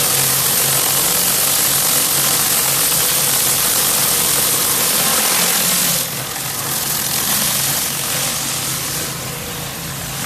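Pressure washer running: a steady engine hum under the loud hiss of the high-pressure water spray. About six seconds in, the spray hiss drops and becomes quieter.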